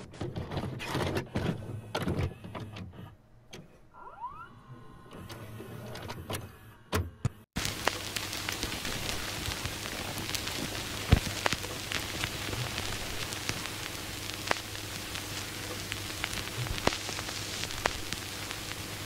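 A run of mechanical clicks and clunks. Then, after a brief cut-out about seven seconds in, a steady hiss with a low hum and scattered crackles.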